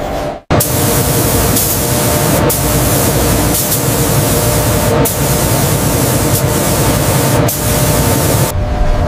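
Paint spray gun on a robot arm hissing steadily. The hiss starts suddenly about half a second in, has brief breaks about every two and a half seconds, and cuts off shortly before the end.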